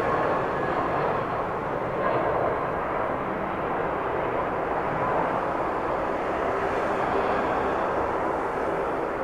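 Jet airliner's engines at takeoff power, a steady rumbling noise that slowly eases off.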